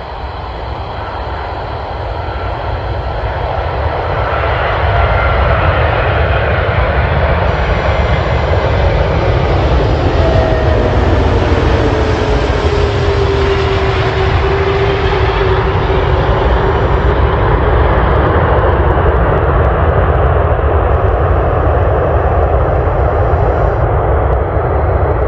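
Airbus A380's four turbofan engines on landing approach, growing louder over the first few seconds as the jet nears, then a loud steady rumble and roar. About ten seconds in, a whine falls in pitch as the airliner passes by.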